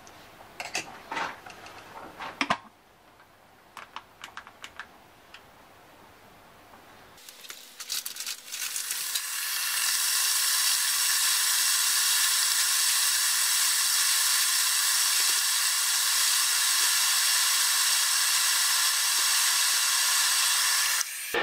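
A few plastic clicks as the stainless-steel electric kettle's lid is shut and its buttons pressed, then the kettle heating water: a crackling hiss that builds over a couple of seconds, holds steady, and cuts off suddenly near the end.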